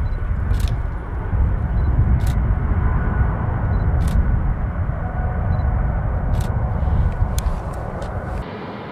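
Swiss Bombardier CS100's twin Pratt & Whitney PW1500G geared turbofans at takeoff power as the jet climbs out: a deep, steady rumble with a faint whine over it. A few sharp clicks sound through it, and the rumble cuts off abruptly near the end.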